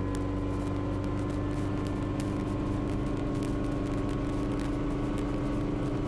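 Schweizer 300 helicopter's four-cylinder piston engine and rotors running steadily at operating RPM on the ground before takeoff, heard from inside the cabin; the pitch creeps up slightly.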